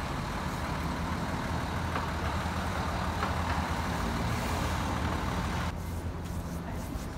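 Steady city street traffic noise, with the low hum of a large vehicle's engine running close by.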